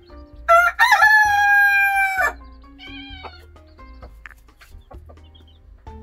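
White silkie rooster crowing once, loud: a short opening note, then one long held note of nearly two seconds that cuts off suddenly.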